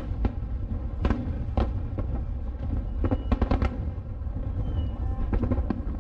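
Aerial fireworks shells bursting, a string of sharp bangs over a continuous low rumble, with a quick cluster of bangs about three seconds in and more near the end.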